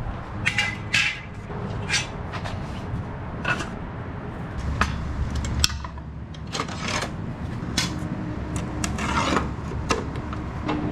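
Rummaging through spare hardware: irregular clinks, knocks and rattles of metal parts being picked through and moved about, over a low steady hum.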